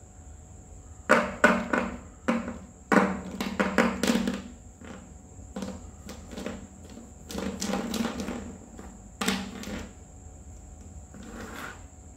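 Plastic felt-tip marker pens clattering and knocking against each other and a paper sheet on a tabletop as gloved hands drop and shuffle them, in several quick flurries of clicks. A faint, steady high whine runs underneath.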